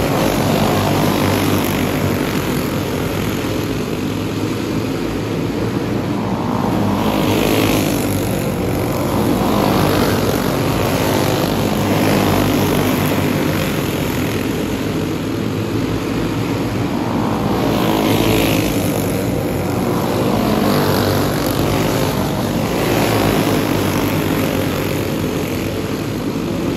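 Several dirt-oval racing karts with clone single-cylinder four-stroke engines running hard as they lap, the engine sound swelling and fading every few seconds as the pack comes past and goes away around the track.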